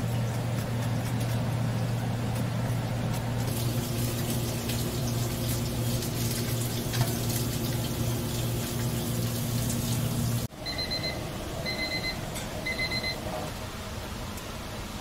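A steady hum with a hiss over it, which cuts off suddenly about ten and a half seconds in; then an electronic appliance beeps three times, about one beep a second.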